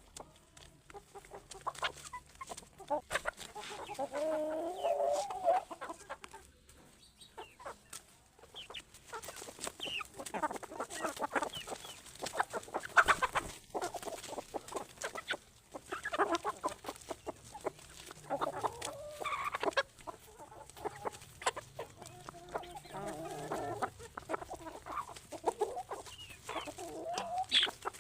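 Free-range chickens clucking, with several drawn-out wavering calls and many short sharp clicks among them.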